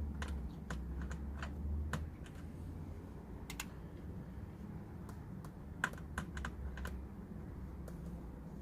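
Irregular light clicks and taps from tools and plastic trim being handled while the front lip is fitted, with a louder pair of clicks about halfway through, over a steady low hum.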